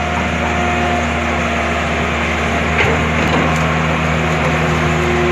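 Heavy excavator's diesel engine running steadily, with a brief knock about three seconds in.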